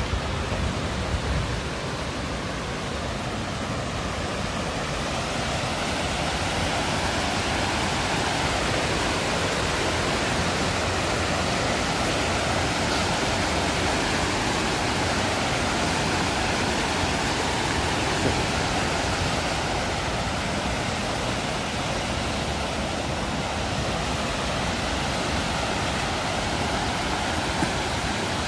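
Water pouring over a small concrete dam spillway: a steady rush of falling water that grows a little louder a few seconds in.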